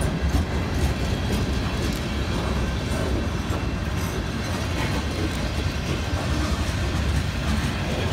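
Freight cars (boxcars and tank cars) rolling slowly past with a steady low rumble of wheels on wet rail and scattered clicks over the rail joints, the train held on its brakes.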